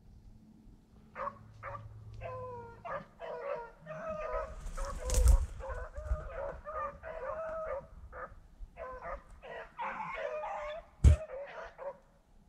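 A pack of rabbit hounds baying and yelping on a rabbit's trail in the brush, several dogs giving short cries and longer drawn-out bays over one another, starting about a second in. A brief low rumble comes about five seconds in, and a sharp thump near the end.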